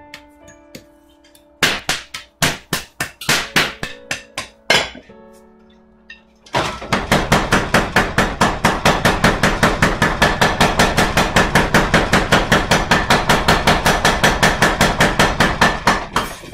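Mechanical power hammer forging red-hot knife steel: a short, uneven run of blows, then from about six and a half seconds in a fast, even pounding of about five strikes a second that stops near the end. A faint plucked-string tune plays under the first few seconds.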